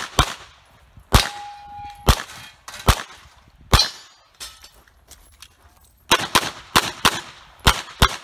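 About a dozen 9mm pistol shots from a Glock 34 in a practical-shooting stage. The first four seconds hold single shots spaced about a second apart, one of them followed by a short ringing tone. After a pause of about two seconds comes a quicker string of shots near the end.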